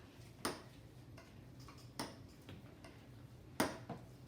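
A few sharp, light clicks and taps of kitchenware, spaced a second or more apart, the loudest about three and a half seconds in.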